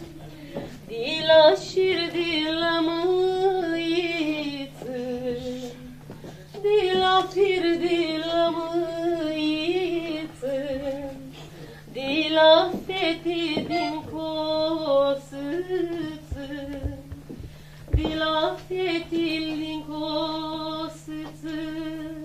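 A woman singing a slow melody solo, with a wavering vibrato, in long phrases broken by short pauses, over a steady low hum.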